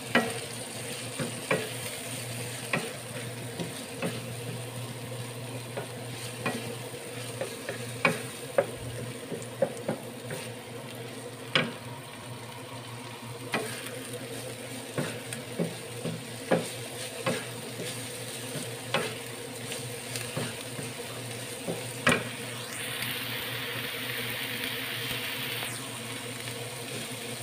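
Sliced green and red chilies and garlic sizzling in hot oil in a nonstick frying pan, with a wooden spatula tapping and scraping the pan as they are stirred. A range hood fan hums steadily underneath, and the sizzle grows louder for a few seconds near the end.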